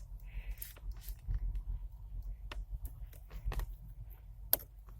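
Scattered light clicks and handling noises from hands working with wiring and a tester inside a car's dashboard, over a low steady hum; one sharper click about four and a half seconds in is the loudest.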